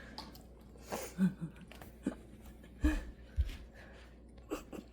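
Pet water fountain pump running low on water, giving faint irregular gurgling and clicking; the low water is the cause of the odd noise. Two soft low thumps about three seconds in.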